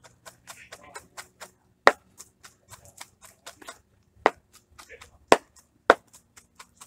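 A knife mincing garlic on a plastic cutting board: quick, irregular knocks of the blade on the board, with a few sharper, louder strikes.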